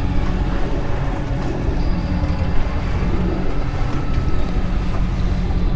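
Fishing boat's engine running with a steady low drone, mixed with wind and water noise.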